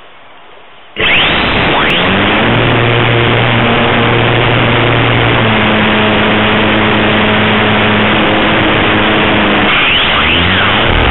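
Model airplane's motor and propeller, heard close from a camera on the wing. It starts suddenly about a second in, runs loud and steady, and its pitch shifts briefly near the end.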